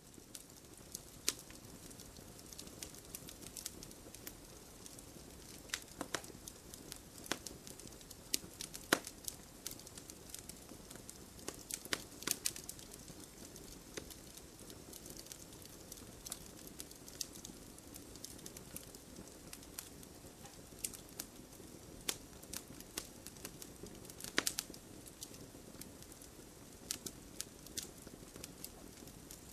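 Campfire burning: wood crackling with frequent irregular pops and snaps over a steady soft hiss of the flames, a few snaps standing out louder.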